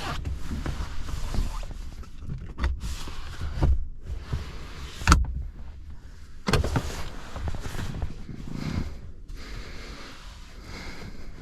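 Inside the cabin of a Porsche Macan 4 Electric at low speed: a steady low rumble with several sharp thumps and clicks, the loudest about five seconds in.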